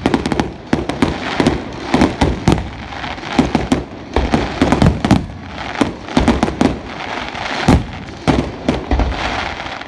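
Fireworks display: a rapid, irregular barrage of loud bangs from bursting shells, with crackle between them.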